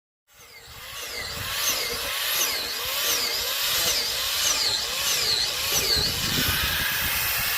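A power tool working on wood, fading in at the start and then running steadily, with a whine that dips and rises about every two-thirds of a second.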